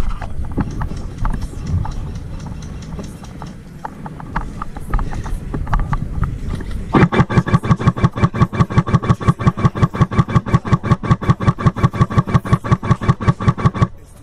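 Airsoft electric gun (AEG) firing one long full-auto burst of rapid, evenly spaced shots, its gearbox cycling right under the gun-mounted camera; the burst starts about halfway through and cuts off just before the end. Before it, footsteps and rustling in dry leaves.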